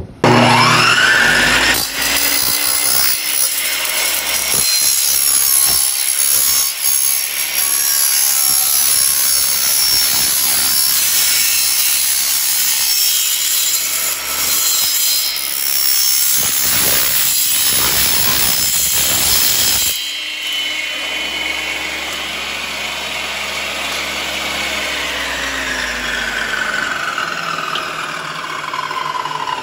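Stanley table saw with a 10-inch, 80-tooth DeWalt blade spinning up with a rising whine, then ripping a thin strip off an aluminium louver panel with a loud, harsh cutting noise for about twenty seconds. After the cut it runs on more quietly and winds down with a falling whine near the end.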